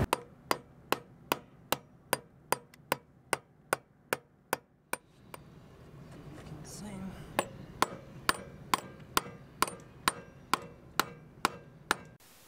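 A hammer striking the top of a 12 mm steel threaded bar, driving it down through a wooden bowsprit to push out the bent king bolt. The blows are sharp and steady, about two and a half a second, in two runs with a short pause around the middle.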